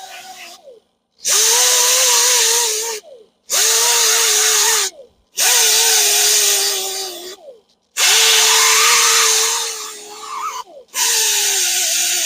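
Rotary grinder with an abrasive disc grinding down curb rash on an aluminium alloy wheel. It runs in several bursts of a couple of seconds each, with a steady whine over a loud grinding hiss, and the pitch drops as it spins down at the end of most bursts.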